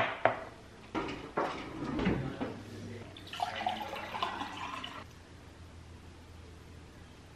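A drinking glass set down on a granite countertop with a sharp clink, a few knocks of handling, then water poured from a filter pitcher into the glass for about a second and a half.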